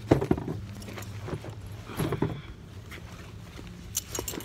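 A few irregular knocks and rubbing noises from a handheld camera being moved about, loudest just after the start, around two seconds in and near the end, over a steady low hum.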